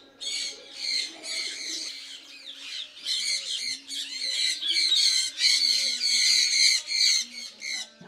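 Birds squawking in a rapid run of short, high-pitched calls, several overlapping, loudest in the middle of the stretch.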